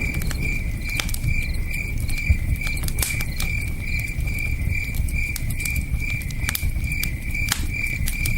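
Campfire crackling with scattered sharp pops, over crickets chirping in a steady pulse of about three chirps a second and the low rush of a river.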